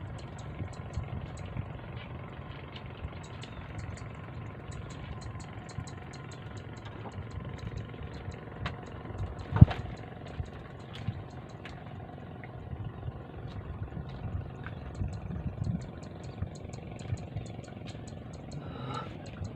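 An engine running steadily with a low, uneven rumble and a light, regular ticking, and one sharp knock about halfway through.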